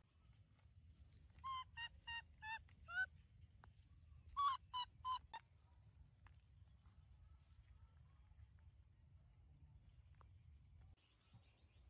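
Short, pitched, honk-like animal calls in two runs: five in quick succession about a second and a half in, then four more around four and a half seconds. A faint steady high whine lies underneath.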